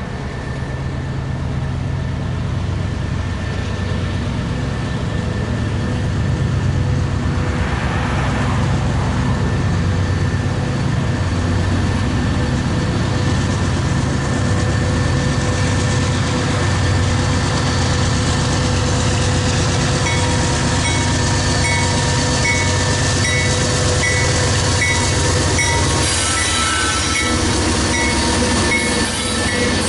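Union Pacific freight train with diesel locomotives approaching and passing: a steady low engine drone that grows louder as the train nears. Wheel and rail noise builds near the end as the locomotives and autorack cars roll by, with a repeated high ping from about two-thirds through.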